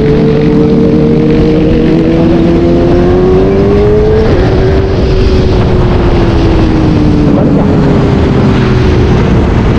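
A high-revving vehicle engine running hard. Its pitch climbs steadily, drops sharply about four seconds in, then sinks slowly.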